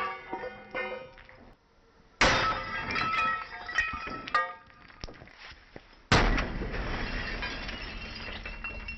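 Two sudden smashing impacts, about four seconds apart, each followed by breaking and clattering debris, with some brief ringing after the first.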